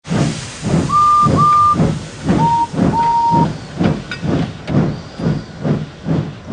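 Steam locomotive sound effect: chuffing at a steady pace of about two puffs a second, with four whistle toots near the start, two short higher ones and then two lower ones, the last a little longer.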